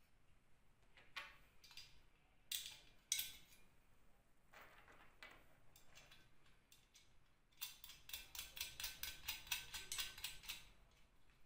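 Light metallic clicks and knocks from handling an electric motor in a steel frame, then near the end a quick run of ticks, about six a second, for roughly three seconds.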